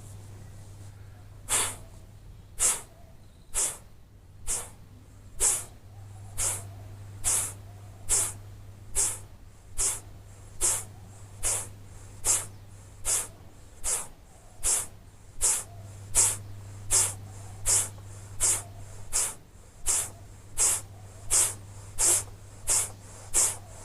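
Kapalbhati breathing: nearly thirty sharp, forceful exhalations through the nose, each a short hissing puff, about one a second and getting slightly quicker toward the end. The strokes are done after jal neti to blow leftover water droplets out of the nose.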